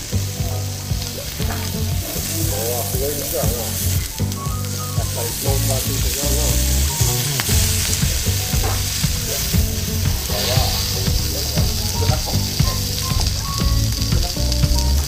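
Wagyu beef sizzling and frying on a tabletop yakiniku grill: a steady, crackling hiss of fat cooking.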